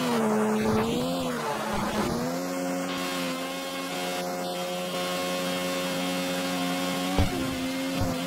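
Video-game car engine sound running as a steady drone, its pitch wavering over the first two seconds and then holding level, with a short thump about seven seconds in.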